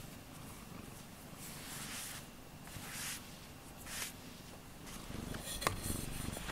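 Domestic cat purring right against the microphone, with a few soft brushing swishes as its fur and face rub the camera. A sharp knock comes near the end.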